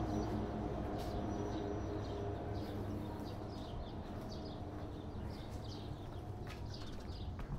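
Small birds chirping in many short, quick calls, over a low steady drone that slowly fades.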